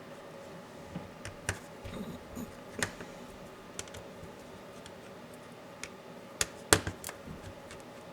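Irregular small clicks and taps of a laptop being taken apart by hand, its parts and tools knocking and snapping. The sharpest click comes about two-thirds of the way in, over a faint steady hum.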